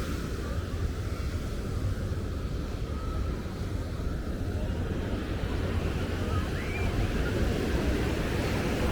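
Surf breaking on a beach under a steady wash of noise, with wind rumbling on the microphone.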